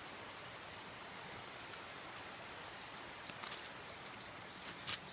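Forest insects keeping up a steady, high-pitched chorus. A few short crackles come in over it during the last second and a half, the sharpest just before the end.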